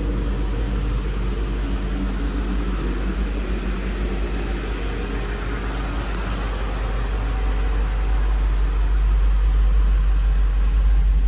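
2004 Ford Thunderbird's 3.9-litre V8 engine idling steadily.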